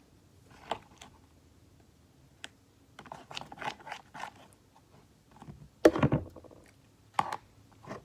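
Slime being mixed in a bowl as Tide laundry detergent is worked in to activate it: scattered scrapes and clicks, bunched around three to four seconds in, with the loudest knock about six seconds in.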